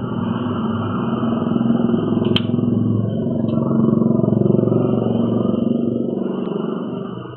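An engine running steadily, growing louder toward the middle and dropping away sharply near the end, with a single sharp click about two seconds in.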